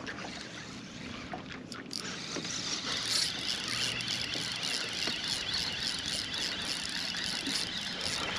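Fishing reel's drag buzzing with rapid, even ticks as a hooked fish pulls line against the bent rod. It starts about two seconds in and grows louder.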